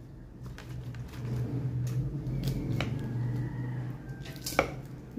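Chopsticks handling dry seaweed sheets in a plastic tray and laying them on a bowl of noodles: light rustling with two sharp clicks, over a steady low hum.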